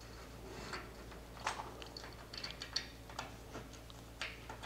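Faint, scattered small clicks and rustles of hands fitting a plastic roller onto the end of a toothed curtain-track drive belt.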